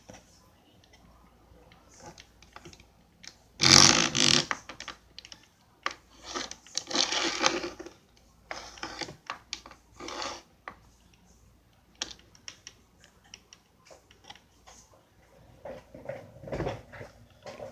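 Wooden stop block being handled on a router table fence T-track: several scrapes of about a second each as it slides, with many small clicks and knocks in between and a dull knock near the end.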